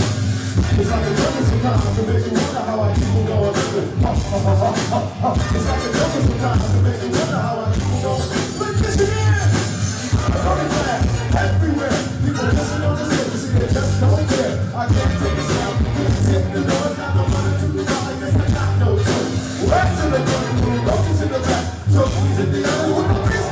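Live rock band playing a hip-hop medley: drums keeping a steady beat, a prominent electric bass line and electric guitar, with vocals over the top.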